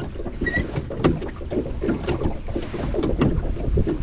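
Small boat on the water, with irregular knocks and water sounds against the hull and wind buffeting the microphone.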